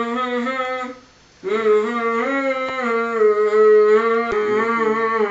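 A young male voice humming a drawn-out tune in long held notes, breaking off briefly about a second in.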